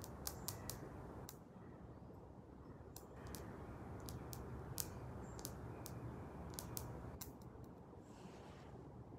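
Scattered sharp clicks, some in quick clusters, over a faint steady low hum.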